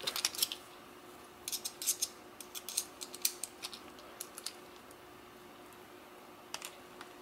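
Small sharp metal clicks and light scrapes from a lock cylinder being handled and worked with a small hand tool as it is taken apart. The clicks come in scattered clusters through the first half, then a quieter stretch, then a few more near the end.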